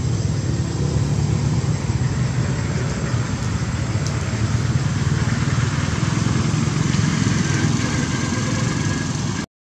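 A steady low rumble that cuts off abruptly near the end.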